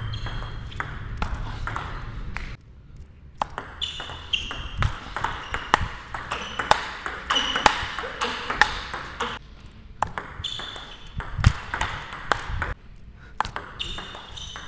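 Table tennis rally: a celluloid-type ball clicking off the rackets, one of them a DHS Hurricane King Wang Chuqin blade, and off the table, several hits a second at times, with two short breaks between points.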